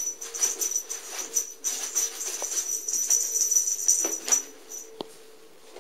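Crinkly rustling of a shiny cat toy being shaken and swished about in quick strokes, with a single sharp knock about five seconds in.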